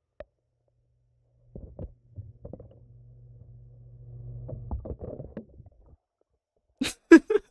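Muffled bathwater sloshing and rumbling against a phone held in a bathtub, with handling bumps. A few sharp knocks near the end, the loudest sounds.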